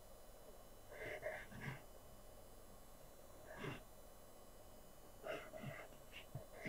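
Faint scratching of a pencil on drawing paper: several short strokes in small clusters, about a second in, near the middle, and twice more toward the end.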